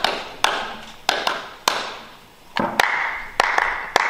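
Hand claps in an uneven rhythm, about nine sharp claps, each with a short echo.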